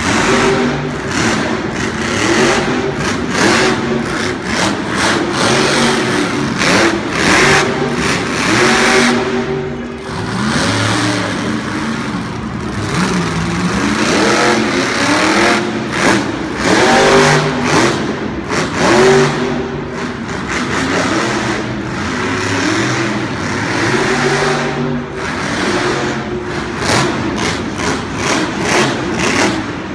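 Carolina Crusher monster truck's supercharged V8 engine revving hard, its pitch rising and falling over and over as the throttle is opened and lifted.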